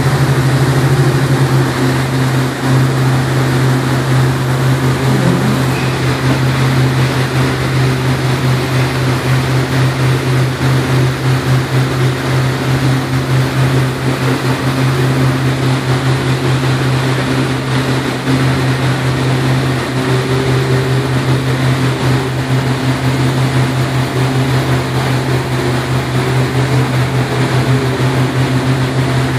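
A motorboat's engine running steadily under way, a constant low drone over the rush of water from the boat's wake.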